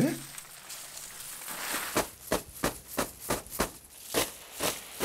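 Bundles of dried perilla stalks beaten against an upturned parasol to thresh out the seeds. The dry plants rustle at first, then from about two seconds in come steady strikes, about three a second.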